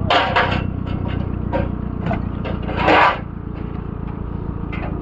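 Off-road vehicle's engine running steadily at low revs, with several short bursts of rough noise over it, the loudest about three seconds in.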